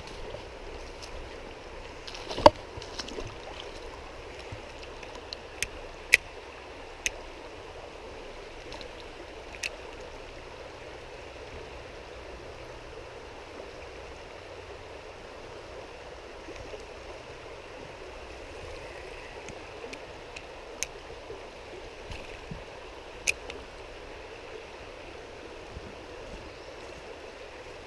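Shallow rocky trout stream running steadily over stones, with a handful of sharp clicks and taps close by, the loudest about two seconds in.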